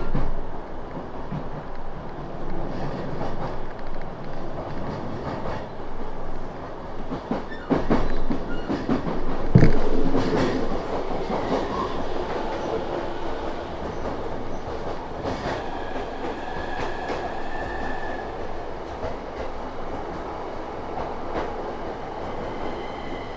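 Inside a moving commuter electric train: steady running rumble with irregular clacks of the wheels over rail joints and points, the loudest about ten seconds in, and a faint brief wheel squeal a little past halfway.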